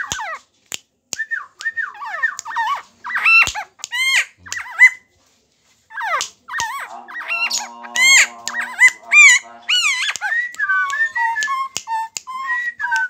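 A hand-held helmeted friarbird (koak kaok) calling in loud, arched, rising-and-falling whistled notes, mixed with a man's coaxing whistles and sharp finger snaps. The calling breaks off for about a second near the middle and then comes back denser.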